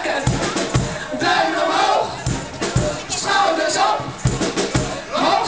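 Loud party music with a regular bass beat, and a crowd singing and shouting along.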